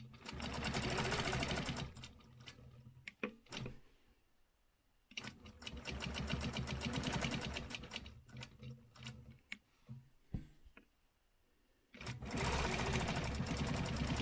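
Quilting machine stitching in three short runs of rapid, even needle strokes, stopping between runs, as it sews a ruler-guided straight echo line. Light clicks sound in the pauses.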